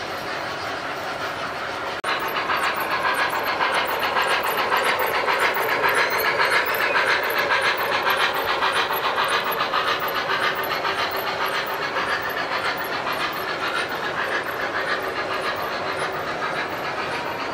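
Model trains running on the layout track: a steady rolling rumble with rapid clicking of the wheels over the rail joints. It grows louder about two seconds in and is loudest as a model steam locomotive and its freight cars pass close by.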